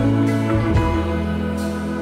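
Background music: a soft instrumental track with sustained guitar-like notes.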